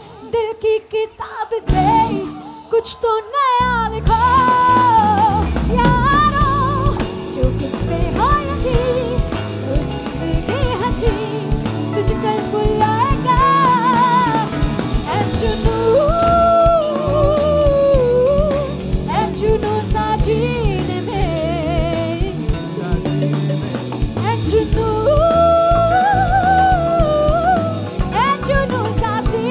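Live amplified band performance: a woman singing a Hindi pop-rock song into a microphone over drum kit, keyboards and bass. The first few seconds are sparse and uneven; the full band comes in about four seconds in and the singing carries on with a wavering, ornamented melody.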